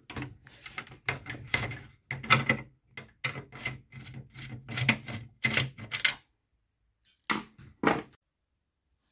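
Quick, irregular clicks and knocks of a screwdriver working a screw out of the plastic Land Rover Discovery 4 centre console at the handbrake switch. The clicks stop about six seconds in, and a couple of louder knocks follow as the console is handled.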